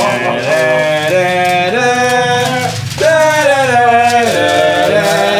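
A man singing loudly without accompaniment, holding long notes that step up and down, with a short break about three seconds in and a falling glide after it.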